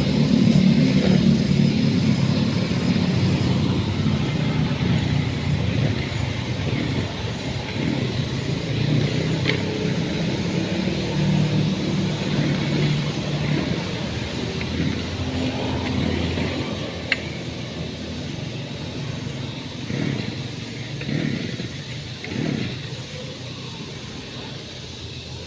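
An engine running steadily, getting gradually quieter, with a single sharp click part-way through.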